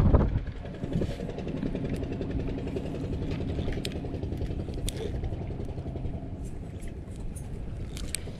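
A small boat's engine running steadily at low revs, with a few light clicks along the way.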